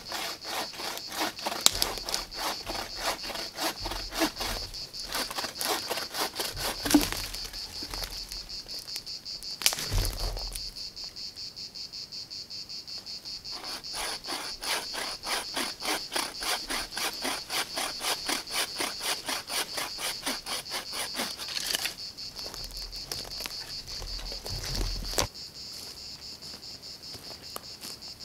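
Hand frame saw cutting conifer wood in quick, regular strokes, pausing about ten seconds in and stopping near the end, with a thump at each stop. A steady, high insect chirring goes on throughout.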